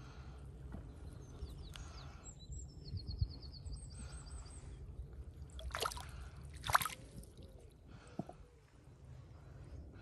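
Trout thrashing in a landing net at the water's surface, water sloshing in the mesh, with two sharp splashes about six and seven seconds in.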